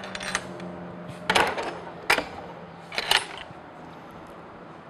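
Aluminum horse-trailer escape door being swung shut and latched: a few light metal clicks, then three louder metallic clanks about a second apart.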